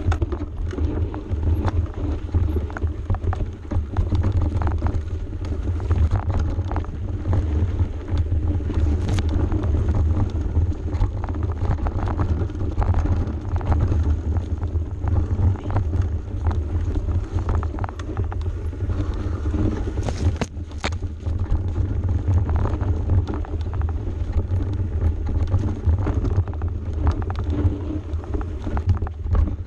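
Mountain bike running fast down a rough dirt single track: a heavy wind rumble on the microphone, with a steady stream of knocks and rattles from the bike over bumps and roots.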